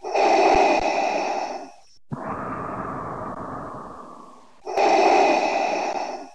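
Darth Vader's mechanical respirator breathing, played as a sound effect. A hissing in-breath with a whistling edge is followed by a longer out-breath that slowly fades, and then the next in-breath.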